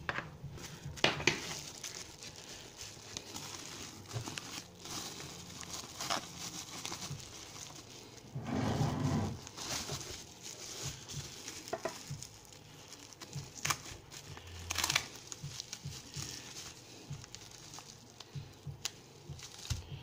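Plastic bubble wrap crinkling and crackling as it is handled and pulled apart, in irregular bursts, with a longer, louder rustle about nine seconds in.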